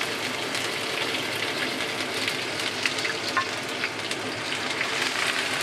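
Fresh sand ginger frying in hot lard and oil in a wok: a steady sizzle with small crackles as the aromatic is fried to release its fragrance, on its way to turning lightly golden.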